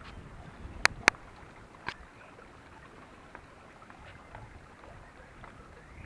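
Footsteps over a rocky streambed, with sharp clicks of hard objects striking rock: two close together about a second in and a weaker one near two seconds. Otherwise only a faint, even hiss with small scattered ticks.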